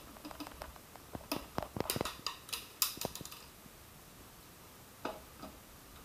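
Plastic clicks and knocks from the Kärcher WD1 vacuum's motor head and filter cartridge being handled and set down, with the motor off. A quick run of knocks comes about a second in, the loudest near the three-second mark, and two softer knocks follow near the end.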